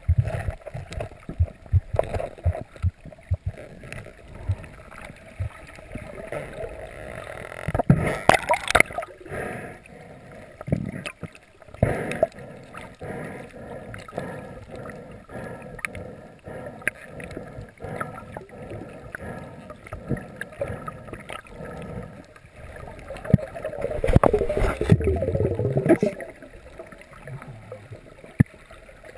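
Muffled underwater sound heard through a waterproof camera housing: water moving against it, with scattered knocks and clicks. Louder rushing swells come about 8 seconds in and again near the end.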